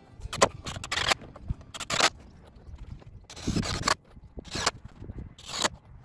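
Irregular short bursts of scraping and handling noise from carpentry on a wooden roof frame, about six in a few seconds, with no steady tool whine.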